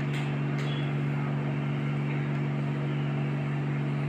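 A steady machine hum with a hiss under it, unchanging in level, and a few faint clicks near the start.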